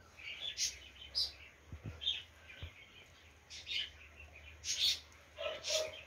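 A bird chirping in short, irregular high calls, over the scrape of a wooden spoon stirring cassava starch as hot liquid is poured onto it.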